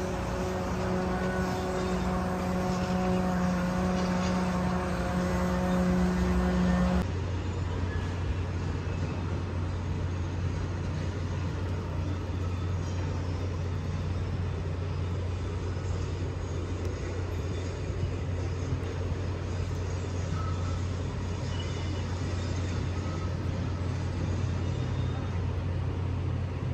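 Steady engine hum, as of machinery or vehicles running. About seven seconds in it switches abruptly to a different, lower steady hum.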